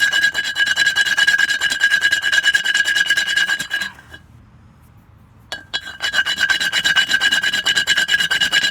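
Wood being ground down with a tool: a rapid rasping over a steady high whine. It stops a little before halfway and starts again about a second and a half later.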